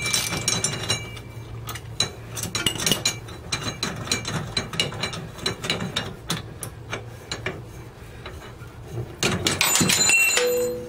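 Socket ratchet clicking in runs of rapid strokes as it unscrews a tie rod whose threads are held only by thread-locker (Loctite). Near the end comes a louder metallic clatter that rings briefly.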